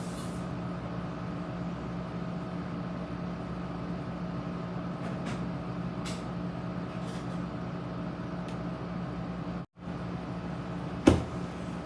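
A steady mechanical hum with several fixed tones, like a fan or appliance running, with a few faint clicks. It cuts out for a moment a little under ten seconds in, and a single sharp knock comes near the end.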